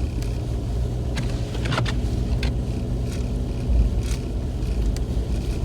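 Steady low rumble of a car's engine and road noise heard from inside the cabin while driving, with a few faint, irregular clicks and ticks.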